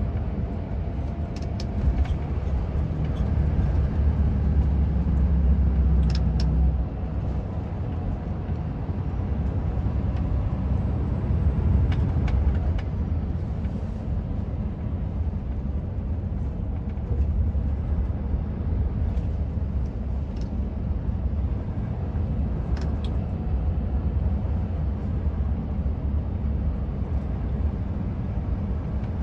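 Road vehicle driving along: a steady low engine and tyre rumble that swells a little about four to six seconds in and again around twelve seconds, with a few faint ticks.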